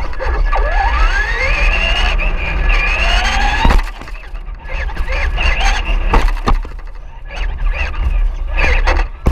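Electric RC car motor whining and rising in pitch as it speeds up, twice, over a steady low rumble. It cuts off with a sharp knock about four seconds in, leaving quieter scattered clatter and knocks.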